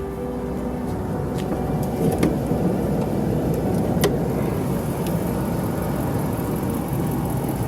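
Pickup truck engine idling steadily, heard with the hood open, with a few light clicks.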